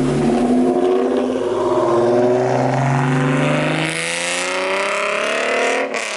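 Hyundai Genesis Coupe 3.8 V6 passing close by, then accelerating hard away down the road, its exhaust note climbing in pitch.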